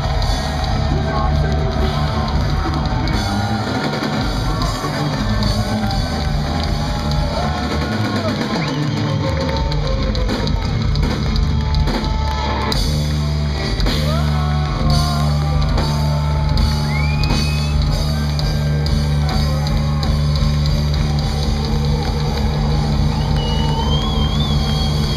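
Metal band playing live, with electric guitar, bass and a full drum kit, loud and dense, recorded from within the crowd.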